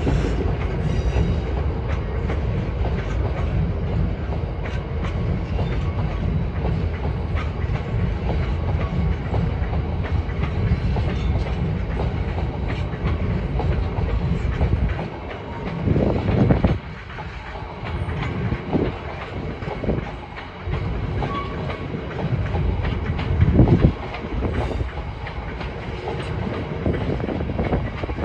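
Freight train of red open box wagons rolling past, the wheels clattering over rail joints with a steady rumble. Past the halfway mark the rumble drops and grows uneven, broken by a few louder low thumps.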